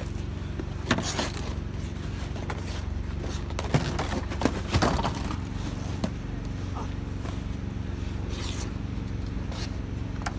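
A person in winter clothes slipping and falling on rink ice: several thumps and scrapes, the loudest cluster about four to five seconds in, over a steady low hum.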